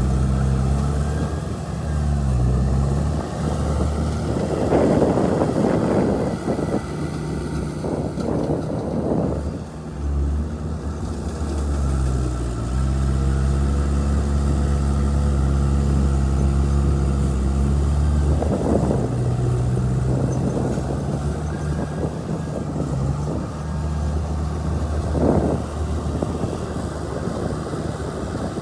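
Heavy diesel engine of an earth-moving machine running under varying load, its note dropping and picking up again a few times. Four short spells of louder rough clattering noise come over the engine sound.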